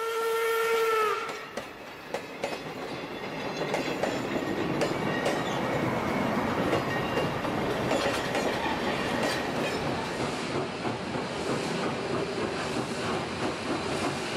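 Steam locomotive No. 3254 sounds its whistle once, a single steady tone that drops slightly as it cuts off about a second in. Then comes a steady rumble and hiss with scattered clicks and clanks as the locomotive turns on the turntable.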